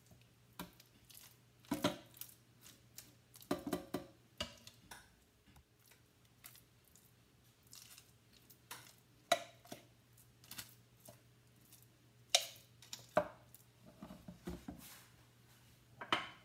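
Serving spoon and spatula knocking and scraping against an enamelled cast-iron pot and a metal loaf tin as a thick vegetable mixture is scooped out and spread, in scattered short taps and scrapes with quiet gaps between.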